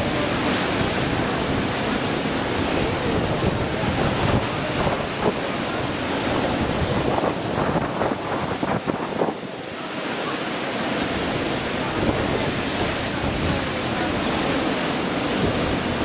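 White water rushing and churning along the side of a moving cruise ship's hull, mixed with wind buffeting the microphone. The sound eases briefly about nine seconds in.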